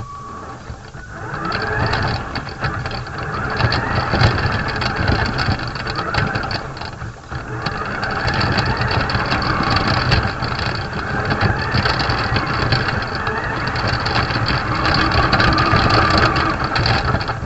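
Radio-controlled model car's motor and drivetrain running over rough ground, heard from its onboard camera, rising and falling with the throttle and dipping briefly about seven seconds in. Constant rattling and jolting from the bumpy terrain runs through it, with a short beep at the very start.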